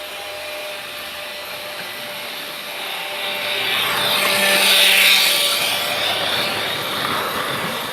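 Freight train rolling past: a steady rumble and rattle of wheels on rails that swells to a loud hiss about halfway through, then eases off.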